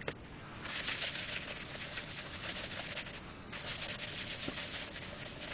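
Cloth rubbing sanding sealer onto a glued-up sycamore and oak bowl as it spins on a lathe: a steady friction hiss with a brief break about three and a half seconds in.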